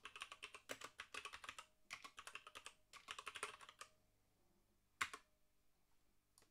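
Typing on a computer keyboard: quick runs of key clicks for about four seconds, in three bursts, then a single louder click about five seconds in.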